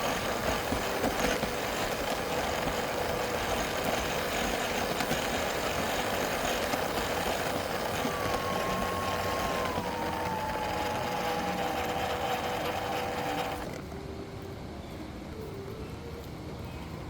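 A motor vehicle running steadily, with a constant whine and a second whine that slides down in pitch. It drops away suddenly near the end, leaving a quieter background with a few short tones.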